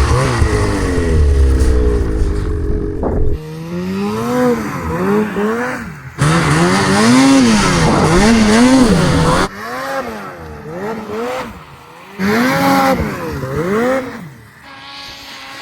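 Snowmobile engine revving, its pitch rising and falling again and again as the throttle is worked, heard in several short stretches that end abruptly.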